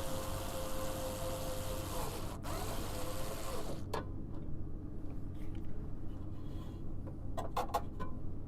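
Small electric motor whirring steadily, with a short break about two seconds in, then stopping just before four seconds in. Afterward a steady low hum and a few light clicks.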